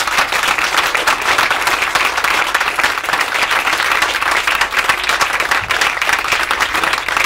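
Audience applauding: many hands clapping in dense, steady applause.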